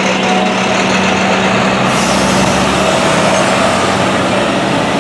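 A heavy road vehicle passing close by over a steady engine hum, its noise swelling about halfway through.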